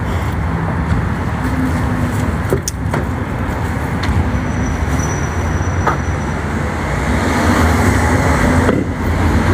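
Road traffic noise: a steady rush of cars passing, with a low engine hum.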